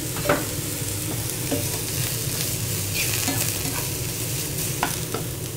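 Oyster mushrooms and shallots sizzling steadily in olive oil in a nonstick frying pan, with a few short scrapes and clicks as a slotted spatula stirs them.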